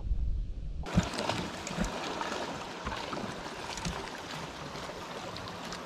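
Water lapping and trickling against a boat's hull, an even noise with scattered faint ticks, starting abruptly about a second in after a low rumble.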